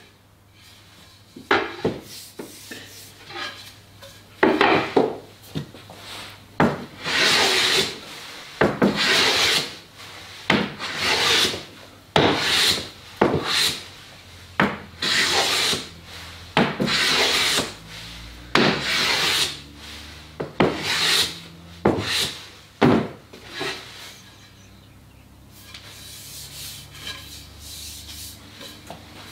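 Metal hand plane smoothing a board: a long run of swishing strokes, one every second or two, as it takes shavings off the wood. The strokes stop a few seconds before the end.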